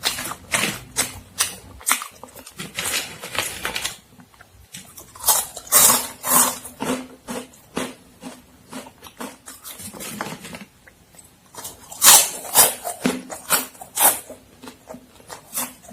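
Close-miked crunching and chewing of Momogi puffed corn stick snacks: irregular crisp crunches several times a second, with short lulls between bites.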